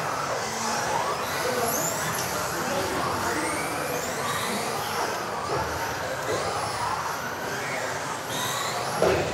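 Several electric RC offroad race cars running laps, their motors whining and overlapping, the pitch repeatedly rising and falling as they accelerate and brake.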